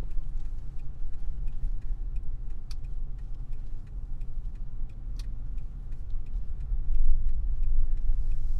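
Vehicle driving slowly, heard from inside the cabin: a steady low road and engine rumble with scattered light clicks.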